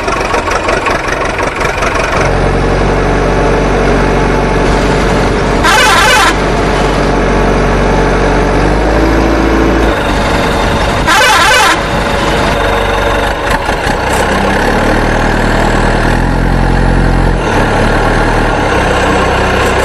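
Truck engine sound running steadily, shifting pitch a few times, with two short horn blasts about six and eleven seconds in.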